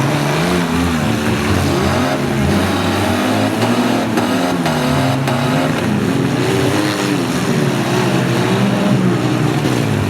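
Several demolition derby car and truck engines running and revving at once, their pitches rising and falling. A few brief knocks from cars hitting each other sound about midway.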